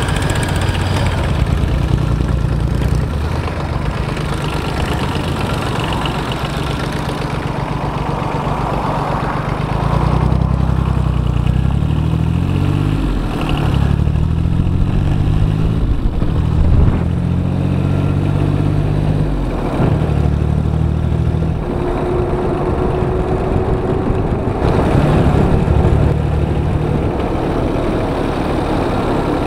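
Diesel motorcycle engine running steadily at first, then its pitch climbs and drops several times through the middle as the bike pulls away and runs through the gears, before settling into a steady cruise.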